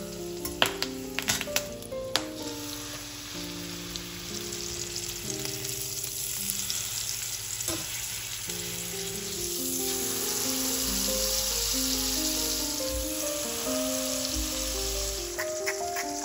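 Butter and a beef roast sizzling in a frying pan, a steady sizzle that grows louder around the middle. A few sharp clicks in the first couple of seconds, with background music throughout.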